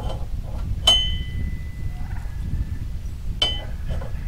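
Steel parts and bolts of a log holder clinking together twice, the first strike about a second in ringing on briefly.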